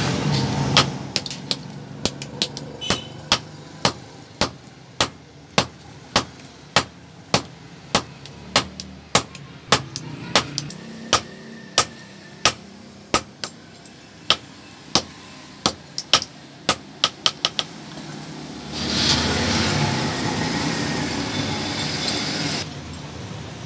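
Hand-hammer blows on red-hot iron held with tongs on a steel anvil block, a steady beat of about two strikes a second that stops about three quarters of the way through. A steady rushing noise follows for a few seconds and cuts off suddenly.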